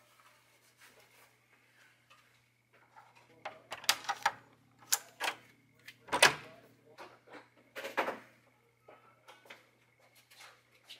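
Hotel room door's lever handle and key-card lock being worked: a run of sharp clicks and knocks, loudest about six seconds in, over a steady low hum.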